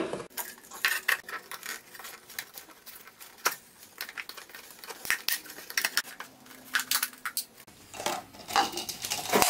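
Thin plastic soda bottles being handled and pressed neck-first into holes in a wooden board: irregular crinkling, crackling and clicking of the plastic, with a louder clatter near the end.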